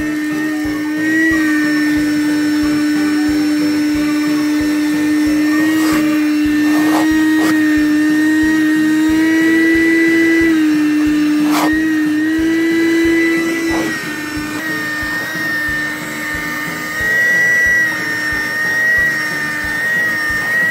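Small Lux Multifunction Wet and Dry Air car vacuum running with a steady motor whine, its pitch shifting a little now and then and the whine weakening about fourteen seconds in. A few sharp knocks come in between.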